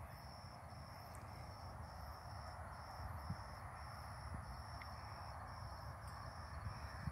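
Insects chirping outdoors: a high-pitched call repeated in short pulses, about two a second, with a low rumble underneath.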